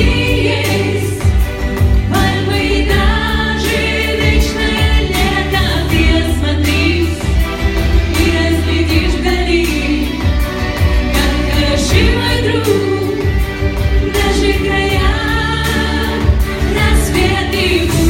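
Pop song: several voices singing over instrumental accompaniment.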